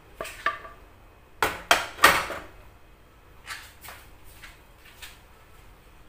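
Kitchen clatter of dishes and utensils: a few sharp knocks, the loudest cluster about two seconds in, followed by several lighter clinks.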